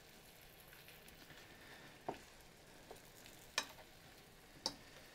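Meat browning in a frying pan over very low heat: a faint steady sizzle, with three sharp ticks spread through it.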